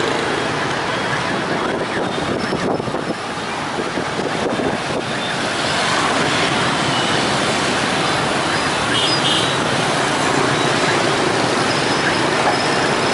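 Dense city traffic: a steady wash of many motor scooter and motorbike engines with cars and buses mixed in, a little louder about halfway through as a wave of scooters pulls through.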